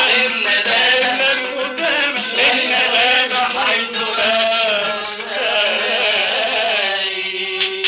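Male voice singing a long, ornamented Arabic melodic line with wavering vibrato in an old 1963 recording of Aleppine muwashshahat. Near the end the voice settles on a held note and qanun plucks come in.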